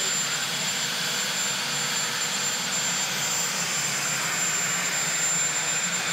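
Marine One helicopter running on the ground with its turbine engines and rotor going, a steady rushing noise with a thin high whine held at an even level.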